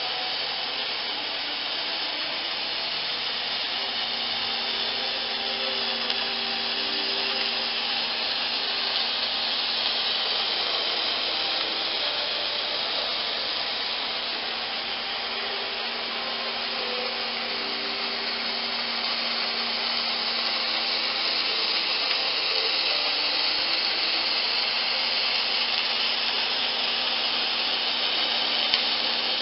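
Automated MIG welding arc hissing and crackling steadily throughout, with a faint steady hum underneath.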